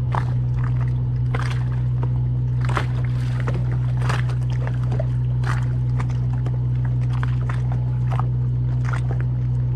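Steady low machine hum from the boat, with irregular water sloshes and slaps against the hull about once a second.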